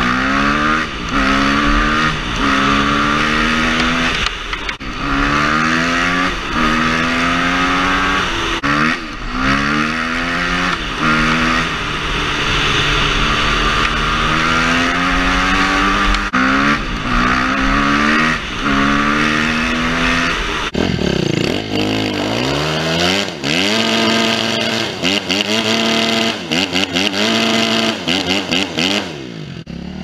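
Kawasaki KX250F's single-cylinder four-stroke engine accelerating hard through the gears, the pitch climbing and dropping back at each shift, over and over. About two-thirds of the way in the note sweeps down and back up, then comes a run of short, quick throttle blips.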